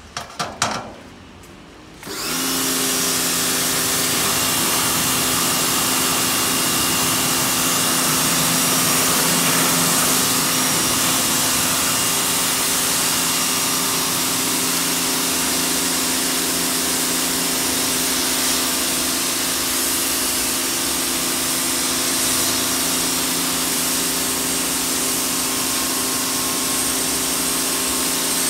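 A few clicks, then about two seconds in a 1550 W Ryobi electric pressure washer starts and runs steadily: a constant motor and pump hum under the hiss of its high-pressure water jet spraying onto wet concrete.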